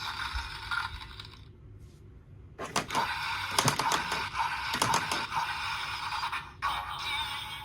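Tinny electronic sounds from a toy's small built-in speaker, thin with no low end, pausing briefly and then resuming. Several sharp plastic clicks come in the middle, from the toy being handled.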